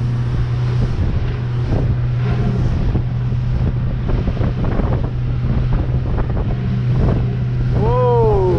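Jet ski engine running steadily at speed, with wind buffeting the microphone and water rushing past. Near the end a short pitched sound rises and then falls.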